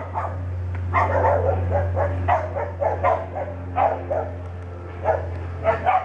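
A dog barking over and over, with several barks close together about a second in and again near the end. Under it runs the steady low drone of the SOCATA Rallye light aircraft's piston engine passing overhead.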